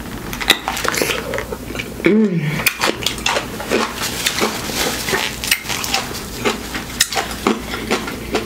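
Close-up chewing of a bite of whole dill pickle topped with whipped cream: a dense run of wet crunches and mouth noises, with a short hummed groan about two seconds in.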